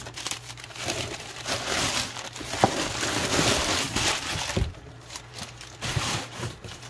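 Brown kraft packing paper crinkling and crackling as paper-wrapped parts are lifted out of a cardboard box, busiest in the first four seconds or so, with a couple of soft knocks later as parts are set down on the bench.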